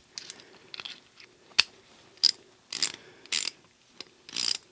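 Freshly reassembled METCOID 1/4-inch 20-tooth ratchet being worked back and forth, its pawl clicking over the gear in short bursts of rapid clicks, about one burst every half second.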